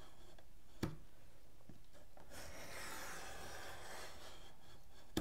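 A sharp knife blade scoring through a thick magazine along a metal ruler: a soft scraping stroke through the middle, with a light click about a second in.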